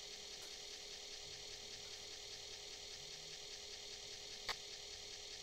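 Emulated Commodore floppy disk drive loading: a faint steady motor hum with one sharp click about four and a half seconds in.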